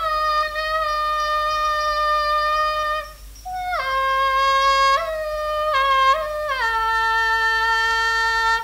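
A single unaccompanied melody line from a Thai classical piphat recording: long held notes that slide and step from one pitch to the next, drifting lower overall. There is a short break in the line about three seconds in.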